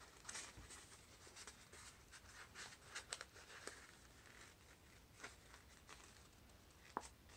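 Faint crinkling and scratchy rustling of paper as fingers press and tuck the seams of a paper sphericon closed, with scattered small ticks and a sharper click near the end.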